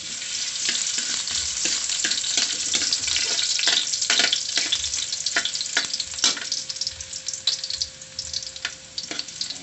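Chopped ginger sizzling in a little hot oil in a metal wok, stirred with a metal spatula that scrapes and clinks against the pan about once a second. The sizzle eases off a little near the end.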